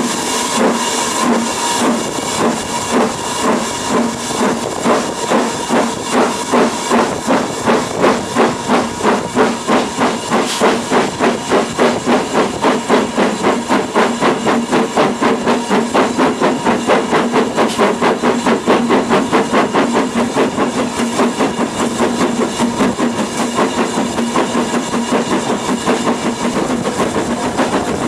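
Steam locomotive working a train, its exhaust beats chuffing in a steady rhythm that gradually quickens as it gains speed, over a continuous hiss of steam.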